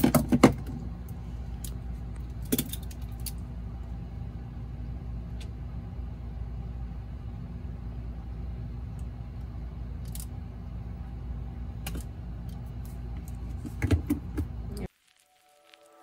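Scattered clicks and metallic snaps from a wire crimping tool and the handling of wires and crimp connectors, over a steady low hum. The clicks are loudest at the start and again near the end, and the sound cuts off about a second before the end.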